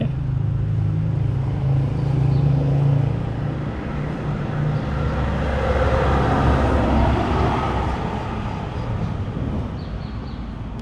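Street traffic: a car engine hums steadily, then a vehicle drives past, growing louder to a peak about two-thirds of the way through and fading away.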